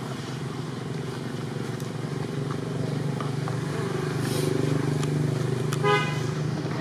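A motor vehicle engine running steadily nearby, growing louder toward the middle as it passes. Near the end there is a brief high pitched tone.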